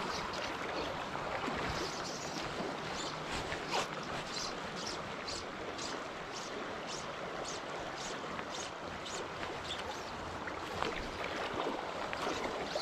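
Steady rush of river current. Through the middle comes a run of short, quick zips, about three a second, as fly line is stripped in through the rod guides.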